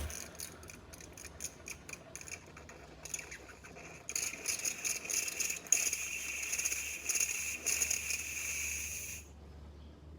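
Espresso machine hissing and sputtering: a crackle of quick clicks for about four seconds, then a louder, steadier fluttering hiss that cuts off suddenly about nine seconds in.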